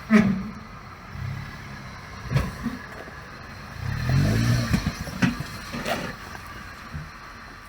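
All-terrain vehicle engine revving up and down briefly about four seconds in, with several sharp knocks and some clatter.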